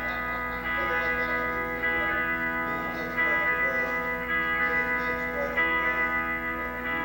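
An amplified instrument playing held chords through the PA, a new chord struck about every second or so.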